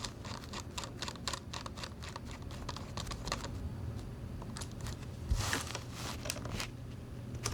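Rapid, irregular small clicks and ticks of a screwdriver turning an M3 screw into a threaded insert in a 3D-printed plastic case. There is a louder scrape a little past halfway.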